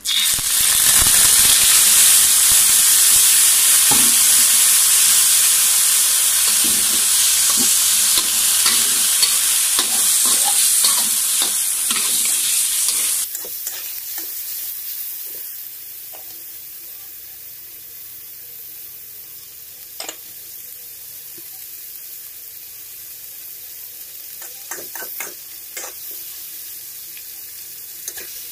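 Raw chicken pieces sizzling as they hit hot oil in a wok, stirred with a ladle that scrapes and knocks against the pan. The sizzle starts at once and is loud for the first dozen seconds, then drops suddenly about 13 seconds in and carries on as a quieter steady frying hiss with scattered ladle clicks.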